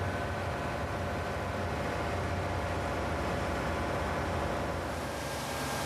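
Steady drone of heavy industrial machinery with a constant hum running through it; about five seconds in, the sound changes and a hiss grows louder.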